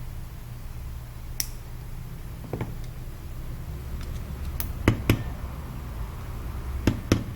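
Light, sharp taps of a tool on metal parts, several coming in pairs about a fifth of a second apart, over a steady low hum.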